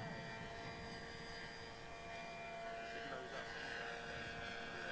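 Electric motor and propeller of a 3D-printed radio-controlled Abrams P-1 Explorer model in flight, heard at a distance as a faint steady whine with several held tones.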